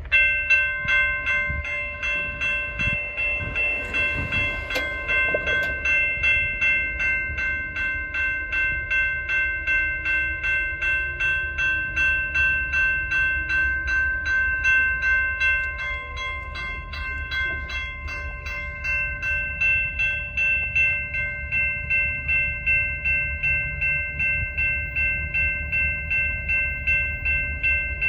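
Railroad crossing warning bell ringing steadily at about two strikes a second.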